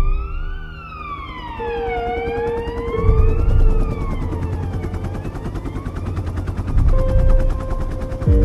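An emergency-vehicle siren wailing, its pitch sliding slowly up and down about every three seconds and fading away, over soundtrack music with deep low booms.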